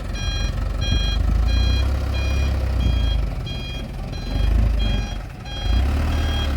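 Dump truck's reversing alarm beeping steadily, a bit under two beeps a second, over the low rumble of its engine.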